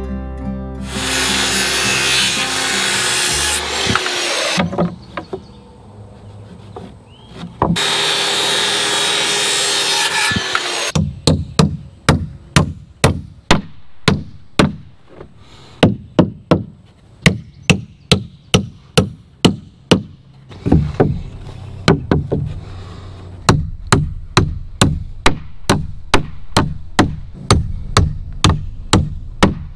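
Two saw cuts through framing lumber, each about three seconds long, then a hammer driving nails into wooden studs: a long run of sharp blows about two a second, with short pauses between nails.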